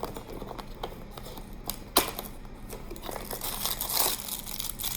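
Cardboard and plastic packaging of an advent-calendar figure being handled and unwrapped: crinkling and rustling with scattered sharp clicks, the strongest about two seconds in, and a denser spell of crinkling near the end.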